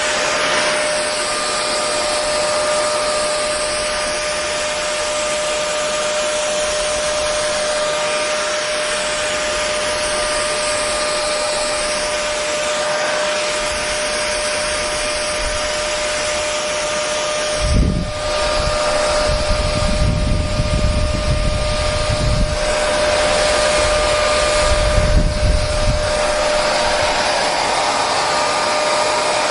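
Hair dryer running steadily: a loud, even rush of air with a steady motor whine. A low rumbling comes and goes in the second half.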